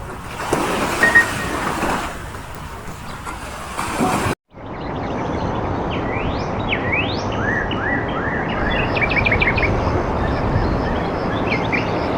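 Birds chirping over a steady outdoor hiss: a few quick upward-sweeping calls, then runs of short rapid chirps, after a brief break in the sound.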